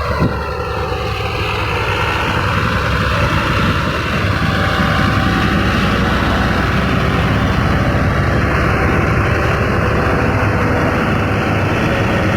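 Heavy diesel construction machinery running steadily, with a brief click just after the start.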